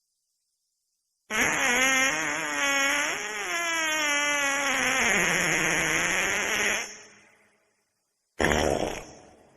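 Fart sound effects: one long, drawn-out fart starting about a second in, its pitch wavering and then falling, followed by a short, noisier fart near the end.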